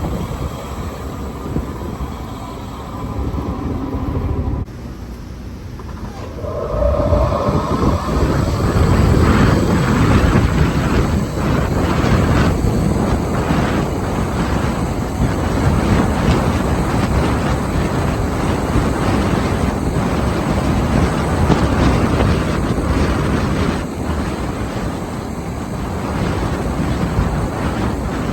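Wind buffeting the microphone on a moving electric golf cart, with rumble from the cart underneath. The noise drops for a couple of seconds about five seconds in, then comes back louder.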